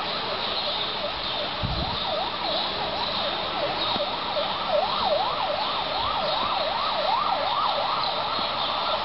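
Emergency vehicle siren in a fast up-and-down yelp, about three rises and falls a second, over a steady background hiss; the siren fades out near the end.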